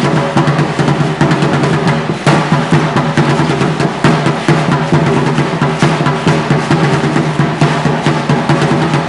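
Aztec dance drumming on a tall upright drum, keeping a steady loud rhythm, with the clatter of many dancers' shell ankle rattles shaken in time with their steps.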